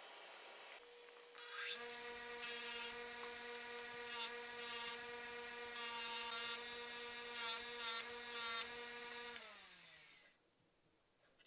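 Bench grinder motor starting up and running with a steady hum, as a workpiece is pressed to the spinning wheel in several short bursts of grinding. Near the end the motor is switched off and its hum falls in pitch as the wheel spins down.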